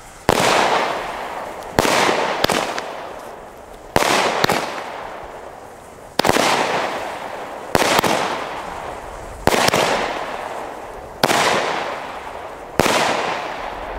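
Lesli 'Wolf' 8-shot firework battery firing its shots one after another, about eight in all, roughly every one and a half to two seconds. Each shot is a sharp bang, sometimes followed by a second bang as the shell breaks, then a long fading tail.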